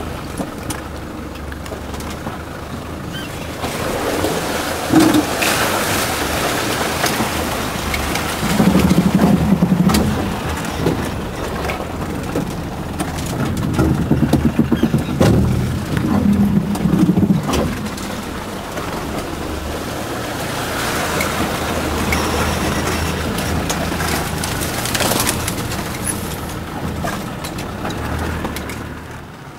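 Land Rover Defender's engine running under load off-road, pulling harder in surges about nine seconds in and again around fifteen to seventeen seconds, with scattered knocks and clatter over the rough ground.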